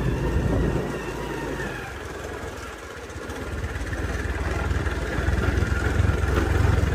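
A motor vehicle's engine running. The sound falls away about two to three seconds in, then builds steadily louder again.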